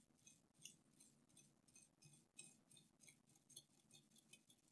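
Near silence: faint room hum with many faint, soft ticks, a few each second.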